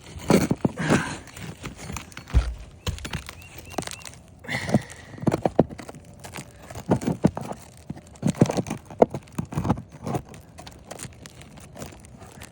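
Irregular knocks, clicks and scrapes of a roofing nail being pried out of roof shingles. The nail deforms instead of pulling free.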